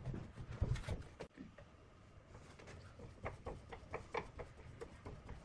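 Heavy thuds and knocks as a rough log is handled and set onto a metal wood lathe, loudest in the first second and a half. A run of light clicks and knocks follows as the log is fitted between the centres. The lathe is not running.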